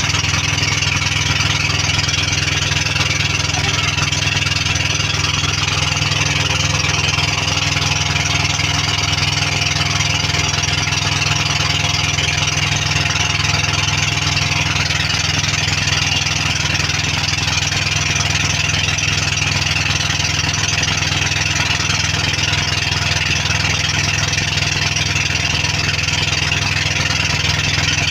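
Pumpboat's engine running at a constant pace, a steady drone that holds without change.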